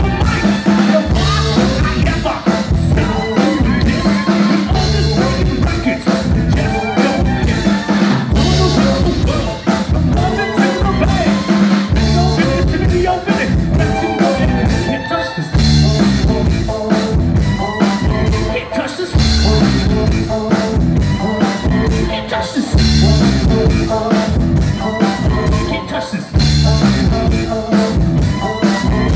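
Live rock band playing loud through stage PA speakers: a steady drum-kit beat, bass guitar and a singer's vocals.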